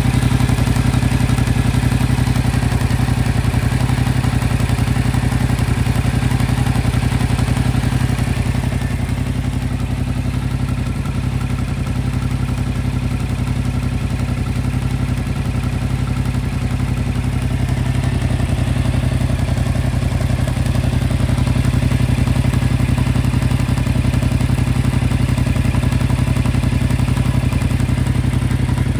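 Yamaha MT-07 (2025) parallel-twin engine idling steadily, on a bike with about 9,500 km on it.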